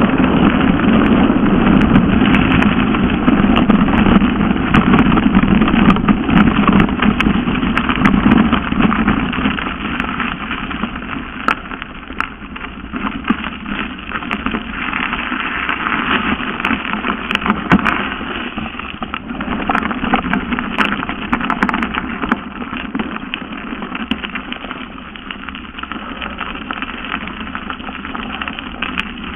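Mountain bike rolling fast down a gravel forest track: continuous tyre rumble and crunch on the gravel with rattling and clicking from the bike, plus wind on the microphone. It eases off after about ten seconds as the bike slows.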